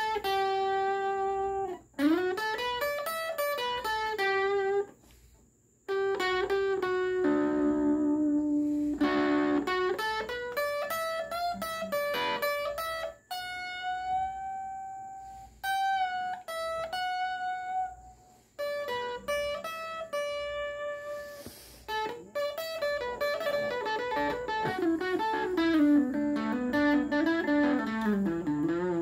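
Solo guitar playing an instrumental melody, with held single notes bent and slid in pitch and quick runs of notes. It stops briefly about five seconds in.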